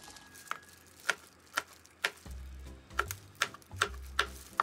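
Kitchen knife chopping through red and green chilli peppers onto a plastic cutting board: about nine sharp chops, roughly two a second, with a short pause in the middle.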